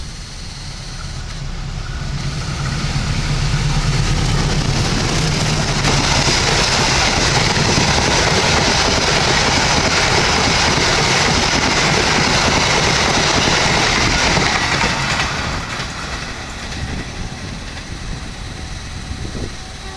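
Diesel-electric locomotive-hauled passenger train passing close by: the locomotive's engine hum as it approaches, then a loud steady rush of the coaches' wheels on the rails, dropping away about fifteen seconds in as the train moves off.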